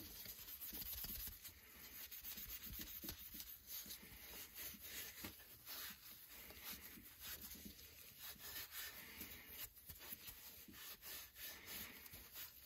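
Steel wool scrubbing a steel ball peen hammer, a faint irregular scratching of many short strokes, rubbing off the rust residue left after a soak in rust remover.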